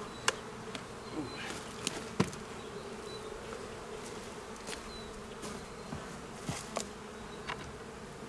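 Honeybees buzzing steadily around an open hive, with a few sharp clicks and knocks scattered through, the loudest about two seconds in.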